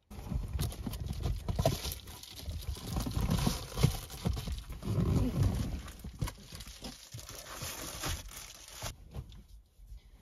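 Rustling of clothes and bedding, with irregular knocks and bumps against the car seats, as a person clambers from the front seat over the seatbacks into the back of a car. The noise stops about nine seconds in.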